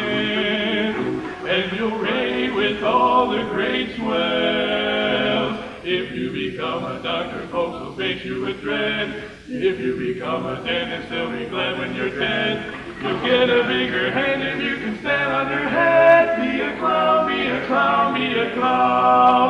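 Four-man vocal quartet of male singers performing a cappella in four-part harmony.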